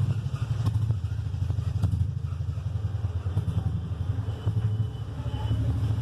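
Steady low rumble of a running motor, with a few faint clicks about one and two seconds in.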